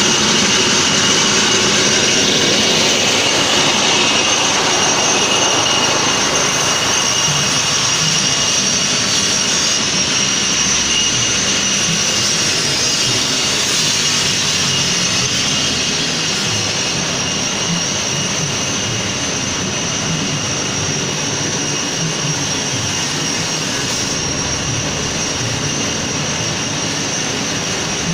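Engine-driven corn sheller running steadily: a loud rushing noise with a steady high whine, easing off a little in level partway through.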